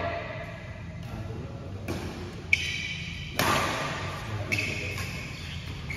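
Badminton rackets striking a shuttlecock during a rally: a sharp smack about two and a half seconds in and a louder hit about a second later, both echoing in the large hall.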